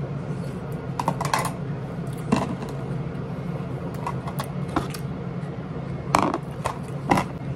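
Plastic chopsticks tapping and scraping inside a plastic salad container, making about nine scattered sharp clicks, the loudest about six seconds in, over a steady low hum.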